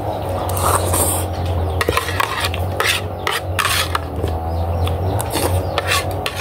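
Spoon clinking and scraping against a plastic plate while eating, in quick irregular clicks, over a steady low hum.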